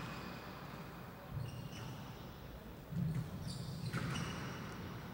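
Squash rally on a glass court: the ball smacks off racket and walls a few times, about one to two seconds apart. Short high squeaks come in between.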